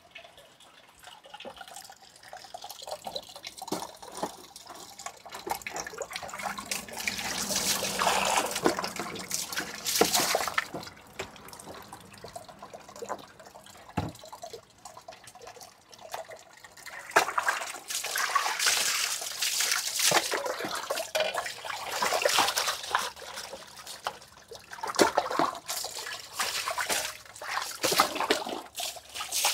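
A pot of pork leg palo (Thai braised pork) bubbling as it is brought to the boil for stewing, in swells that come and go. There is one short low knock about halfway through.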